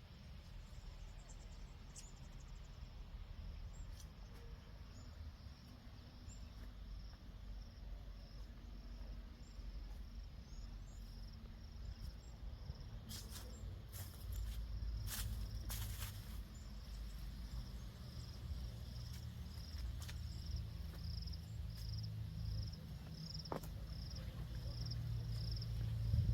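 An insect chirping in short, evenly spaced pulses, a bit more than one a second, over a steady low rumble. A few sharp knocks come near the middle.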